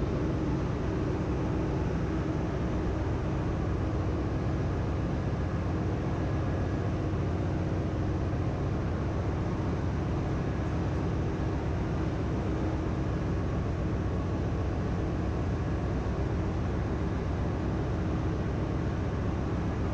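Steady engine-room machinery hum with a low drone and a few constant tones, heard inside the crankcase of a ship's main engine that is stopped for inspection, so the sound comes from the other machinery still running in the engine room.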